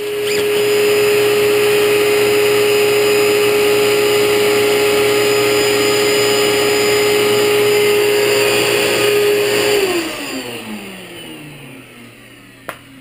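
Shop vacuum running steadily with a constant motor whine, switched off about ten seconds in and winding down in falling pitch. A single sharp knock near the end.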